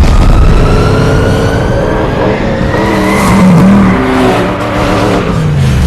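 The Batmobile's engine revving hard and loud, with a whine that climbs steadily over the first few seconds. The engine note swings up and down, dropping and climbing again near the end.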